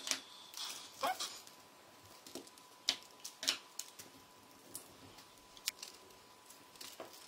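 Soft paper rustles and brief ticks as thin pattern paper is handled and strips of adhesive tape are pressed down onto it, about eight small sounds scattered through a quiet stretch.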